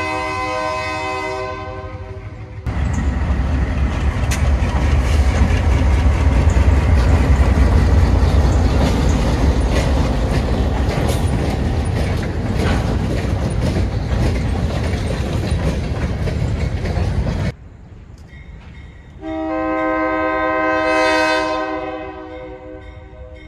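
ALCO diesel locomotive horn sounding a chord, ending about a second and a half in; then a locomotive-hauled freight train passing close, with a loud, deep engine rumble and wheels clicking over the rail joints, which stops abruptly; then another horn blast of a couple of seconds near the end.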